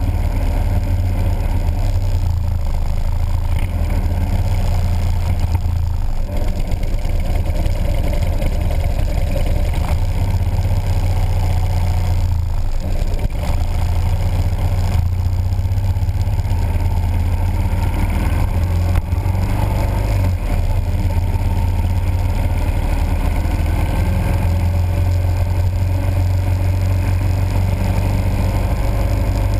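Motorcycle engine running steadily at road speed, a low, unbroken drone, with wind and road noise over the microphone.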